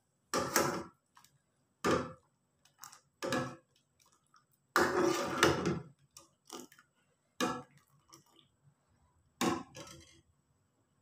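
Metal ladle stirring agar agar in water in a small metal saucepan, scraping and knocking against the pan in about seven short strokes, with one longer scrape near the middle.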